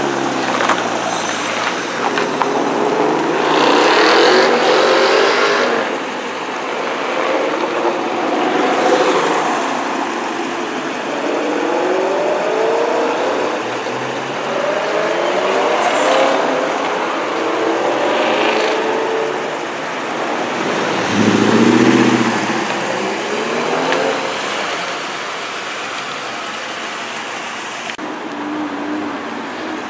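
Performance cars leaving one after another, each engine revving up hard as it accelerates away and then fading, about six loud pulls in all. The first is a black Mk4 Toyota Supra, and a Ferrari 360 rolls past at a steadier engine note near the end.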